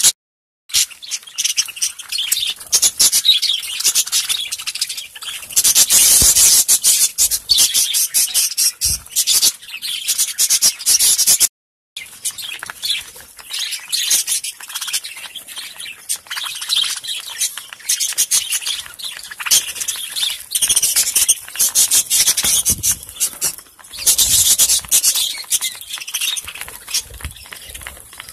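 A flock of budgerigars chirping and chattering, a dense, continuous stream of rapid high chirps. The sound cuts out briefly twice, just after the start and about twelve seconds in.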